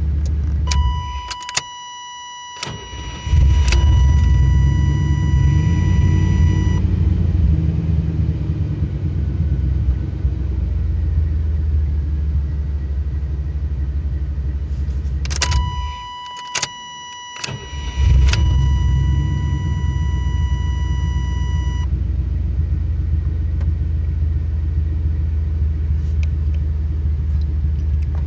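A vehicle's engine idling in Park cuts out twice and is restarted about two seconds later each time, picking up with a short rise in revs before settling back to idle: the stalling fault the owner is showing. Each time a steady electronic warning chime comes on just before the engine dies and keeps sounding for a few seconds after the restart, with a few clicks around the dropout.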